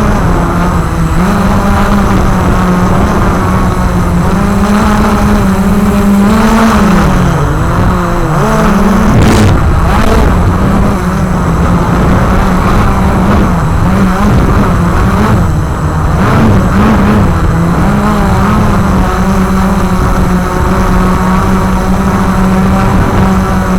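Walkera QR X350 Pro quadcopter's motors and propellers whining steadily in flight. The pitch dips and climbs again about a third of the way in as the throttle changes, and wavers briefly past the middle.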